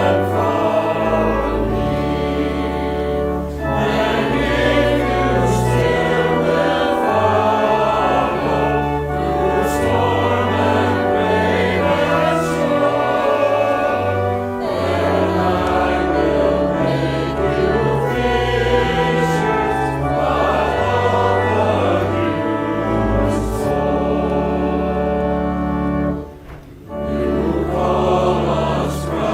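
A congregation singing a hymn together with instrumental accompaniment of sustained low held notes, with a short pause between lines near the end.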